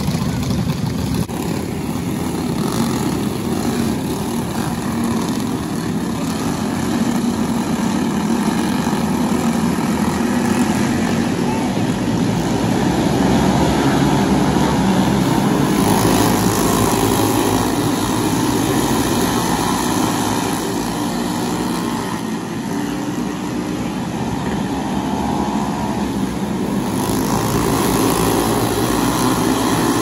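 Racing kart engines running hard as several flat karts race on the track, a continuous buzzing drone that swells and eases as they pass.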